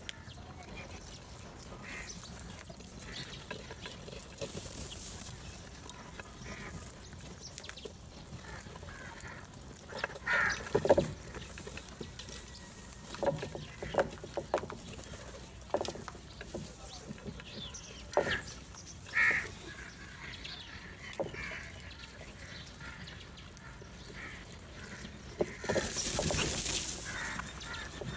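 House crows calling with scattered harsh caws while they feed, the loudest calls about a third of the way in and again past the middle, among short sharp taps. A brief rush of noise comes near the end.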